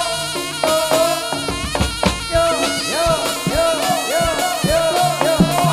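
Live jaranan gamelan music: a shrill reed pipe, the slompret, holds one steady note over quick drumming, with short rising-and-falling pitch swoops on the strokes.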